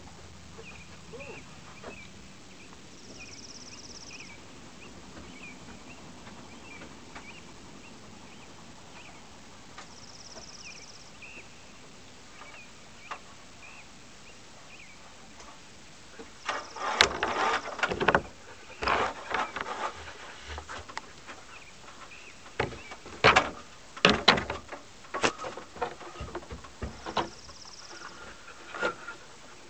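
Faint repeated chirping in the background, then from about halfway in, irregular bursts of loud rustling and clicking as a malamute squirms and rolls in the grass working itself out of its harness.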